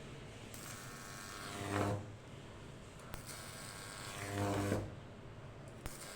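Microwave oven transformers in series buzzing with mains hum. Three times the buzz swells over a second or so into a louder, hissing high-voltage buzz, then drops back.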